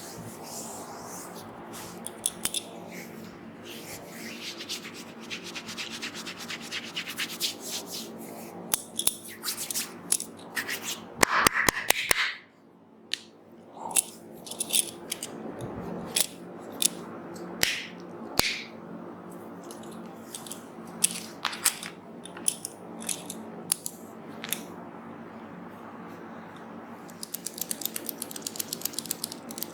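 Head massage by hand: palms and fingers rubbing through hair and over skin, with scattered sharp pats. A loud flurry of pats comes about eleven seconds in, and a fast, even run of tapping starts near the end.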